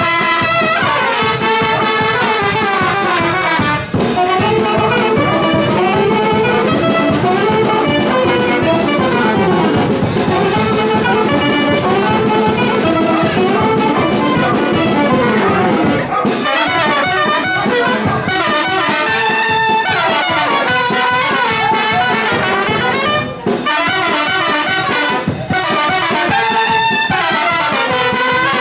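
Live brass band of trumpets and saxophone playing a lively carnival dance tune, with a few brief breaks between phrases.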